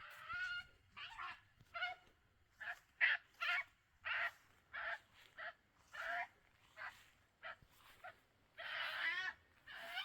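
Two European badgers fighting: a rapid series of short, shrill squealing calls, about one or two a second, with a longer, louder scream near the end.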